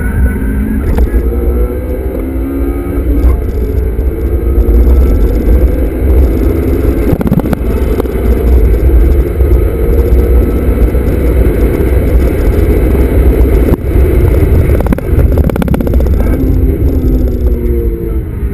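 Honda Civic Type R (FD2) 2.0-litre four-cylinder engine heard from inside the cabin, its pitch climbing and dropping back several times as the car is driven hard, over heavy road rumble.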